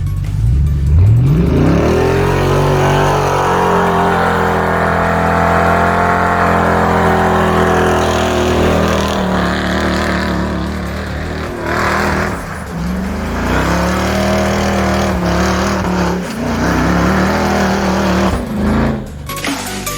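Ford 5.4-litre fuel-injected V8 in a rat-rod truck revved up hard about a second in and held at high revs, then revved up and down repeatedly, as in a burnout attempt.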